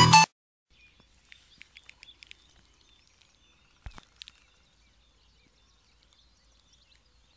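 Electronic music cuts off right at the start. Then comes faint open-air background with a few faint bird chirps, and a single sharp click about four seconds in.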